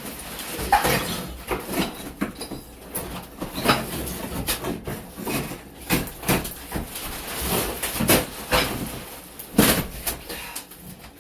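Irregular knocking, clattering and scraping of hand demolition work: wall material being broken loose and debris handled.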